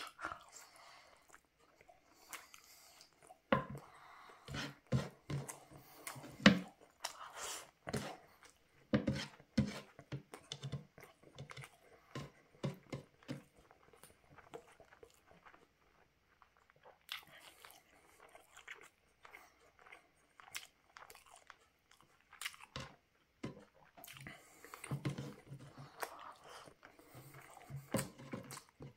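Close-miked mouth sounds of a man eating grilled chicken barbecue and rice: chewing, biting and lip smacks as irregular clicks, with quieter pauses in the middle.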